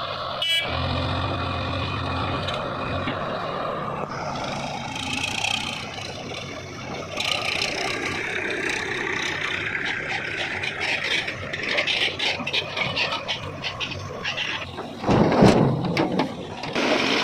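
Heavy diesel machinery running at a mud-loading site: a JCB 3DX backhoe loader and tractors, with knocks and clatter that grow in the second half and are loudest about fifteen seconds in.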